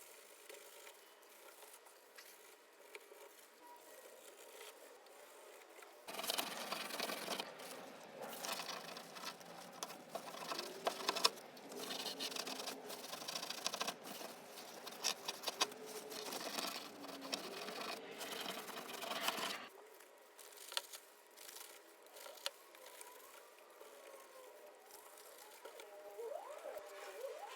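Hands working on the inside of a car door: rustling and rubbing with many scattered clicks and taps, louder for a stretch through the middle and faint at the start and the end.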